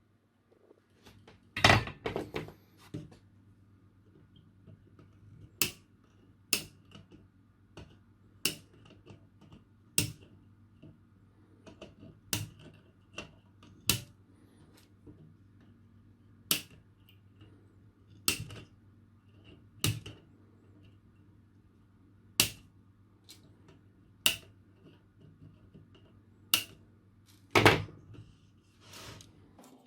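Sharp, separate clicks every second or two from small hand tools at work on a kit circuit board, with a louder cluster of clicks near the start and near the end, over a faint steady low hum.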